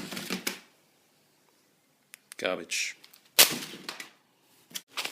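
3.5-inch plastic floppy disks tossed into a rubbish bin: a short clatter at the start, then one sharp, loud clack about three and a half seconds in that dies away quickly.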